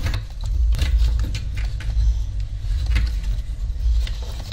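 Light knocks and scrapes of a car's plastic fuel pump assembly being lifted out of the fuel tank opening, over a steady low rumble.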